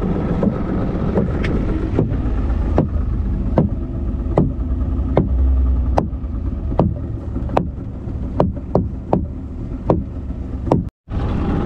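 Small fishing boat at sea: a steady low rumble with sharp knocks about once a second.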